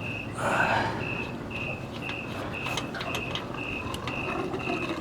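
Water briefly splashing about half a second in as a tankless water heater's small inlet pre-filter is rinsed, followed by a few light clicks. Throughout, a short high chirp repeats about twice a second.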